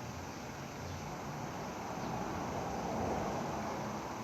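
Steady rushing background noise with no distinct events, swelling slightly about halfway through.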